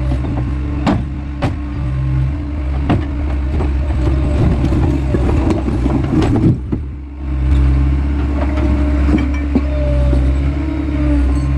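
Skid steer engine running steadily under load, with scattered sharp knocks and clanks as its bucket strikes and breaks up concrete block basement walls. The engine eases briefly about seven seconds in.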